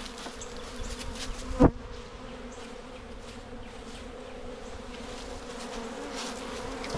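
Honeybees from a freshly dumped package buzzing around an open hive in a steady hum, with one loud knock about a second and a half in.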